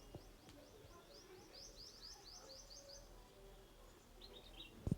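Faint bird chirping: a quick run of short, high chirps, about five a second, then a brief few lower chirps near the end.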